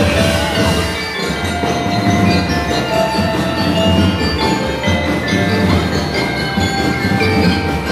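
Drum and lyre corps playing: bell lyres and mallet keyboards ring out a melody of held bright notes over a steady beat of marching bass and snare drums.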